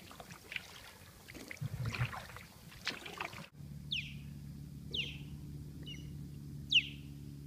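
Canoe paddle strokes swishing and dripping in calm water. After a sudden cut, an osprey gives short shrill calls that fall in pitch, a few about a second apart, over a steady low hum.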